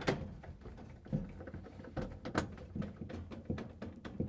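A 1/4-inch nut driver backing screws out of a refrigerator freezer's plastic rear cover panel: a run of small, irregular clicks and taps.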